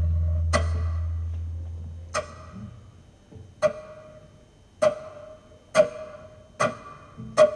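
A small wooden wind instrument sounded percussively: sharp, pitched pops that repeat and speed up. At the start they come over a deep held note that dies away in the first couple of seconds.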